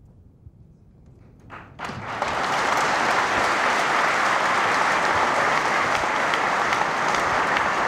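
Quiet for about the first two seconds, then an audience breaks into steady applause.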